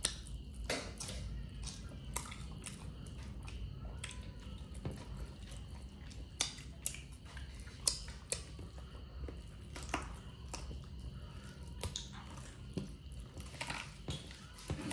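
A person chewing and biting into chicken and cucumber, with irregular crisp crunches and mouth clicks every second or so, a few sharper ones standing out.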